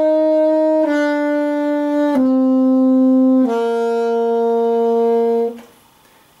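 Alto saxophone playing four held notes stepping down in pitch: written C, B, A, G, which sound as E♭, D, C, B♭. They run on in one continuous breath, each lasting about a second and a half, and the tone stops near the end.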